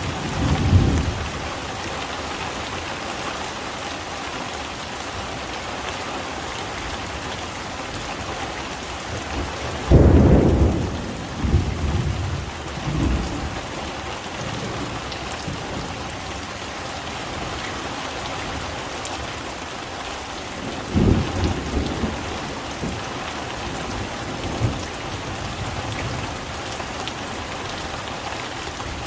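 Steady rain hissing down, with thunder rumbling three times: briefly about a second in, loudest about ten seconds in, rolling on for a few seconds, and again about twenty-one seconds in.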